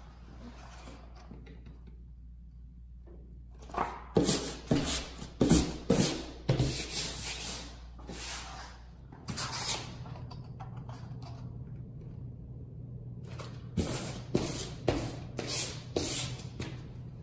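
Hands rubbing and smoothing sheets of 400-grade UArt sanded pastel paper down onto adhesive-coated foam core board: a quiet start, then two runs of short, gritty rubbing strokes, the first about four seconds in and the second near the end.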